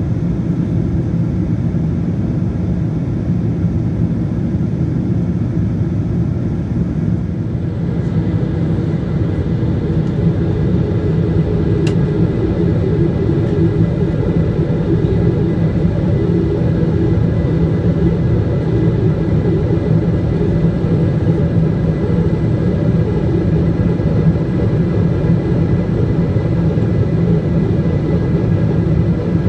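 Steady in-cabin noise of a Boeing 777-200ER in flight: a constant low rush of airflow and engine drone from its GE90 turbofans, heard from a window seat by the engine during the approach.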